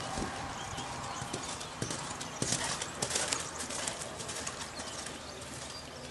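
Hoofbeats of a show-jumping horse cantering on grass turf, in an uneven run of strikes that comes thickest about two and a half to three and a half seconds in.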